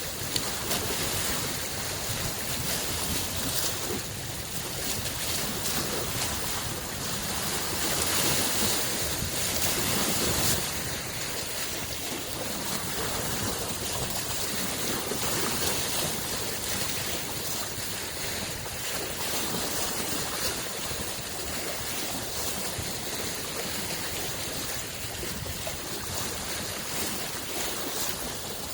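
Small lake waves washing and lapping onto the shore in a continuous wash that swells and eases, loudest about a third of the way in.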